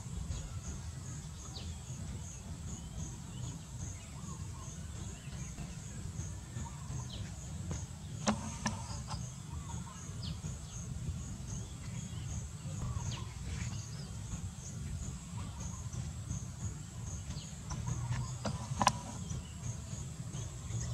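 Outdoor ambience of an insect chirping steadily in high, even pulses about twice a second over a low steady rumble, with a few short bird chirps. Two sharp knocks stand out, about ten seconds apart.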